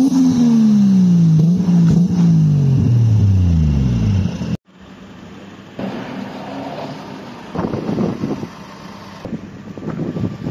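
Toyota Chaser's engine revved at the exhaust: the revs fall away from a blip, pick up in a smaller blip about a second and a half in, then sink steadily over the next few seconds. After a sudden cut, much quieter background noise follows.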